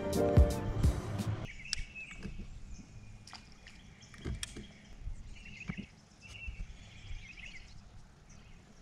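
Background music that cuts off about a second and a half in. After it comes quiet outdoor ambience, with faint bird chirps now and then and a few small clicks and taps.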